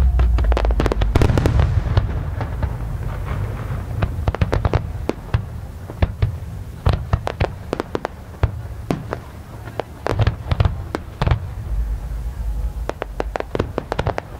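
Aerial fireworks going off. A dense barrage of booms with a heavy low rumble comes in the first couple of seconds, followed by a steady run of sharp crackling pops, several a second, that come in clusters.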